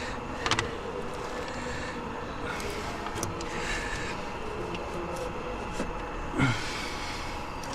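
Clicks and knocks of tools and parts being handled in a car's engine bay over a steady background hum, the loudest a clunk with a short falling squeak near the end.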